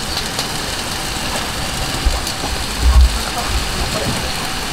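Steady outdoor wind noise, with irregular gusts buffeting the microphone as low rumbles, the strongest about two and three seconds in.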